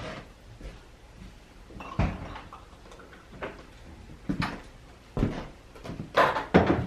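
Scattered knocks and thumps of things being handled in a small room, about half a dozen over several seconds, the loudest near the end.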